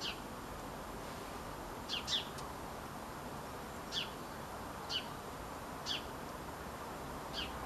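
A small bird calling outdoors: short, high notes that slide downward, coming singly or as a quick pair every one to two seconds, over a steady background hiss.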